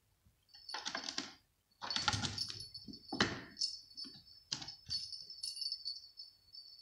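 Small jingle bell on a fabric fish cat toy jingling as the toy is jerked about on its string, over four short bursts of scuffling and scratching as the cat pounces at it.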